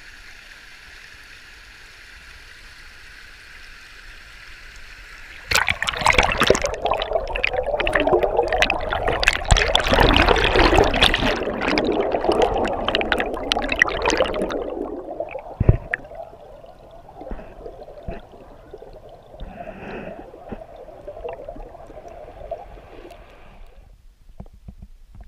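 Mountain stream cascading over boulders, a steady rush of water heard above the surface. About five seconds in, the sound jumps to a loud churning rumble full of bubble crackle as the camera goes under the white water. It then settles into a quieter underwater gurgle with scattered clicks and fades near the end.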